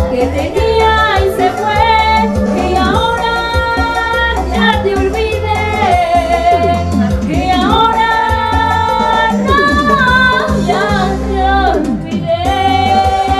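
A woman singing a Latin-style song over a backing track with a steady bass, holding some long notes with vibrato.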